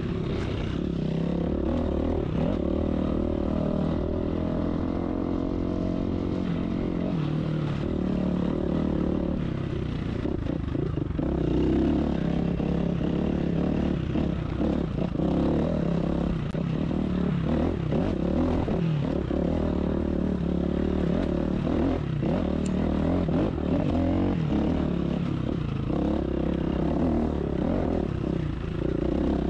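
Dirt bike engine running continuously, the throttle rising and falling with the terrain, with occasional clattering knocks.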